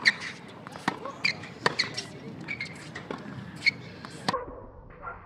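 Tennis balls struck by rackets and bouncing on a hard practice court: an irregular string of sharp pops and knocks that stops a little after four seconds.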